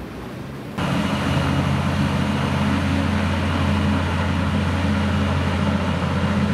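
Passenger hovercraft with twin ducted propellers running across the water: a loud, steady low drone from its engines and propellers over a broad rushing noise. It cuts in abruptly about a second in, after fainter wind and waves.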